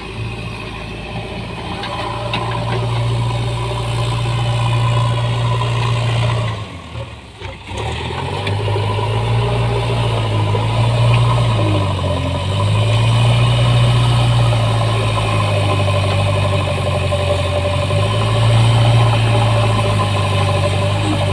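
Diesel engine of a JCB machine running loud and steady, its revs dipping and rising several times. There is a short sharp drop in level about seven seconds in.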